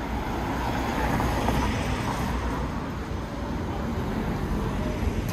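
Street traffic noise: a vehicle passing, swelling louder about a second and a half in, over a steady hum of a city street.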